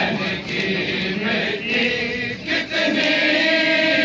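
Men's voices chanting a noha, a Muharram mourning lament, with sharp slaps at intervals from the crowd's chest-beating (matam).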